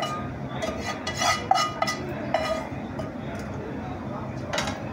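Spatula scraping prawn masala out of a frying pan into a pot of biryani rice: a series of clinks and scrapes on the metal pans, each ringing briefly. The loudest comes about a second and a half in, and another near the end.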